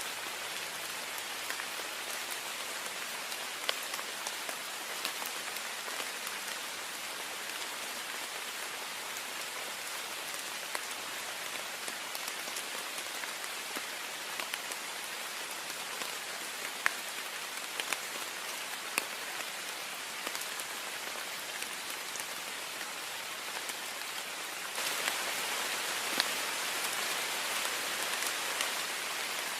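Heavy rain on a window: a steady hiss of rain with scattered sharp ticks of single drops striking. The rain turns suddenly louder near the end.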